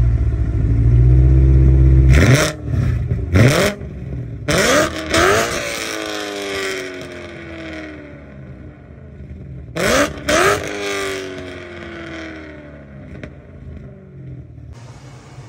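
BMW E92 M3's V8 running through a Remus exhaust with a custom X-pipe and no resonators. It is freshly started and holding a high idle, then revved in four quick blips from about two seconds in, each pitch falling slowly back. Two more blips come about ten seconds in, and it settles to idle between.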